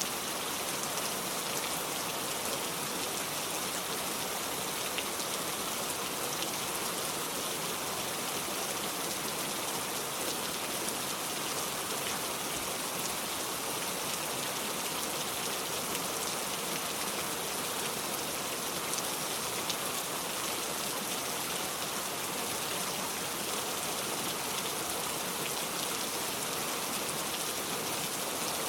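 Heavy rain falling steadily, a dense even hiss with many faint drop ticks and no change in strength.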